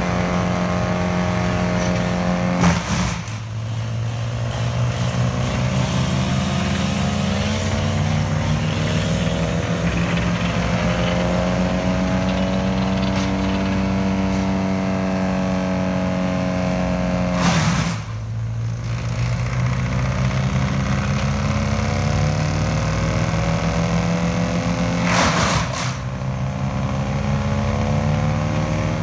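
Large engine running steadily, its pitch drifting slowly up and down, with three sudden brief breaks in the sound.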